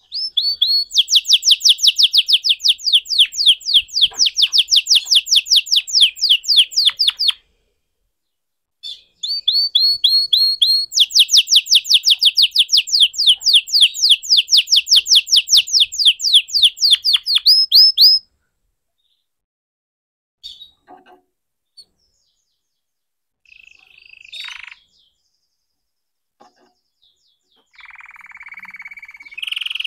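Red canary singing in long rolling trills: two long phrases of fast, evenly repeated sweeping notes, each opening with a few held notes. After them come a few short scattered notes, and a buzzy steady note near the end.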